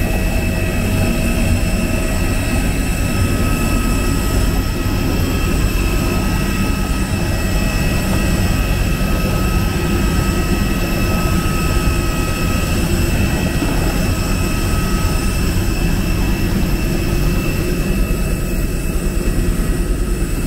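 Steady drone of an airliner heard from inside the passenger cabin: a low rumble with several high, steady whining tones held over it.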